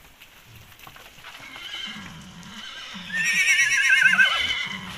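A horse whinnying: one long, quavering call that grows loud about three seconds in and wavers down in pitch as it ends.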